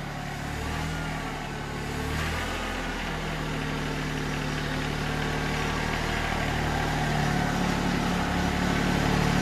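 Compact tractor engine running steadily while the tractor is backed slowly, growing a little louder toward the end.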